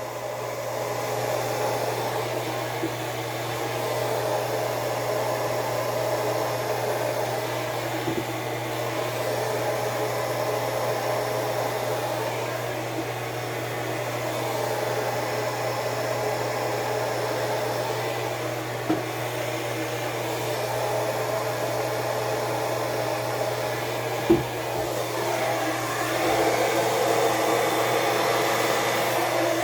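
Handheld hair dryer running steadily, blowing air across wet acrylic paint to push it out into a bloom.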